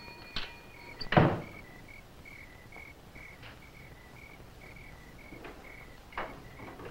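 A door shuts with a thud about a second in, then crickets chirp steadily at about three chirps a second. Near the end come a few dull knocks.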